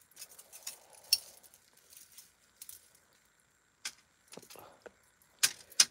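Metal jewelry chains and beads clinking and jangling as a tangled necklace is lifted and handled, with scattered light clicks and two sharper clinks near the end.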